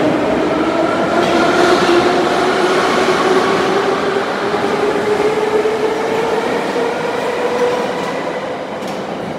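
81-717/714.5 metro train accelerating away from the platform: its traction motors whine, rising steadily in pitch, over the dense rushing noise of the running gear, which grows quieter near the end.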